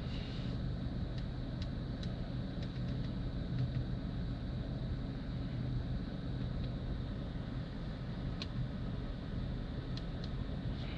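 Steady low hum inside the cabin of a 2020 Mazda CX-30 sitting at idle, with a few faint, light clicks scattered through it.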